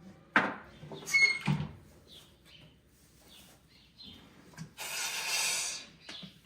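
Folding shelf with a gravity latch being worked: a sharp knock, then a quick cluster of clicks and knocks with a brief metallic ring about a second in, and a longer rushing noise near the end.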